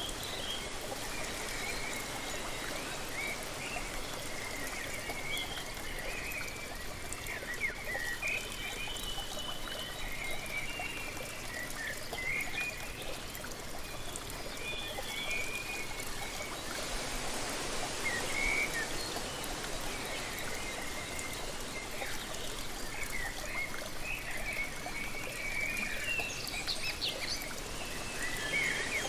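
Steady rushing water of a waterfall, with many small birds chirping throughout. The rush swells briefly a little past the middle.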